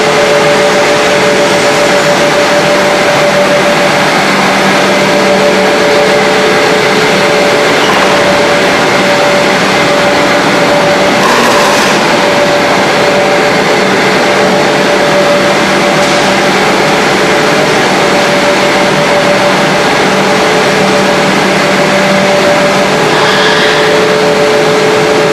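HDPE pipe extrusion line machinery running: a loud, steady mechanical noise with a constant two-note hum, and a short hiss about halfway through.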